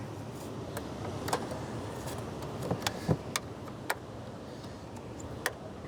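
Scattered sharp clicks and light knocks of the air cleaner housing's plastic parts being handled and fitted back together, over a low steady hum.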